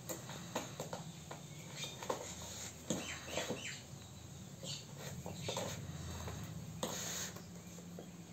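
Kittens pawing and scrabbling at a laced shoe on a concrete floor: scattered light clicks and scratches of claws and paws, over a steady low hum.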